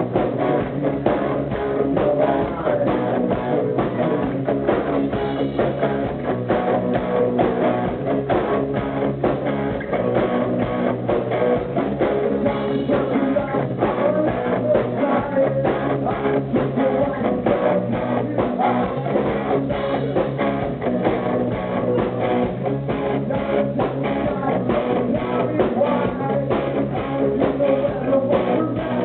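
A rock band playing live: electric guitars, bass guitar and drum kit with a steady driving beat, heard through a muffled, low-fidelity recording.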